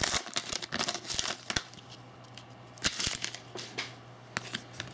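Hockey card pack wrapper crinkling and tearing for about the first second and a half, then scattered sharp clicks of the cards being handled.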